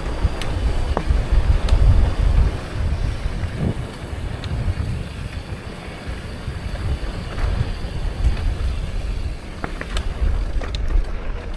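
Wind buffeting the microphone over the rumble of a mountain bike's knobby tyres on a stony dirt trail, with scattered sharp clicks and rattles from the bike as it runs over stones.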